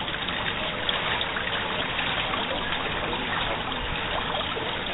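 Water trickling steadily, an even rush with no distinct splashes.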